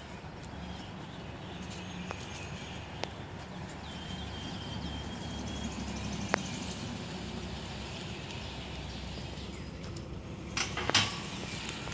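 Outdoor background noise with a faint, thin high bird call held for about two seconds midway and a few light clicks; a short louder sound comes a little before the end.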